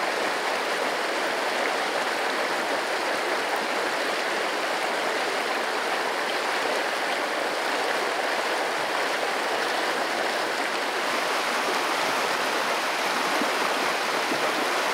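Shallow, fast-flowing creek running over a rocky, gravelly bed: a steady wash of moving water.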